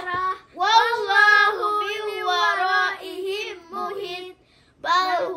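Children reciting Quranic verses aloud in a melodic chant, the voice held and bending in pitch, with a brief pause about four and a half seconds in.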